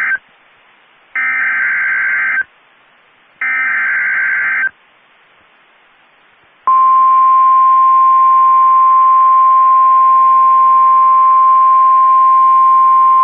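NOAA Weather Radio emergency alert: the digital SAME header bursts, harsh raspy data tones, end the first burst and then sound twice more, each about a second long with faint radio hiss between them. About two seconds after the last burst, the steady single-pitch 1050 Hz warning alarm tone starts and holds. Together they announce a new warning message.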